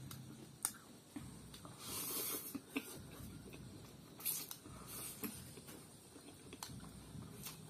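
Close-up eating sounds: spicy instant noodles being slurped from chopsticks and chewed, with scattered sharp clicks and a few brief noisy surges.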